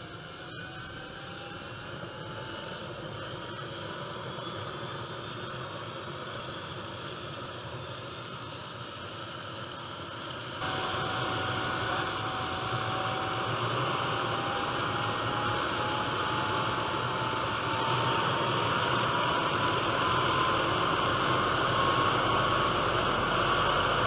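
Turbine engine of an MD 500-series helicopter spooling up on start, with the rotor turning. A high whine and a lower tone both climb steadily in pitch as the sound grows louder, with a sudden step louder about halfway through.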